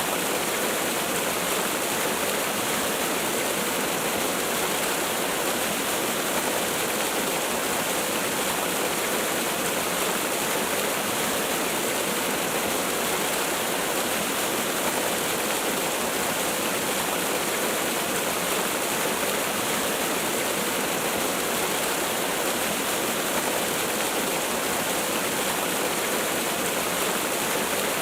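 Waterfall: water falling and splashing in a steady, unbroken rush, even in level throughout, with plenty of high hiss.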